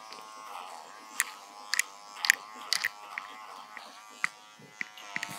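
Small personal electric hair trimmer buzzing as it clips a Labrador's coat, its pitch wavering as the blades work through the fur. Several sharp clicks sound over the buzz.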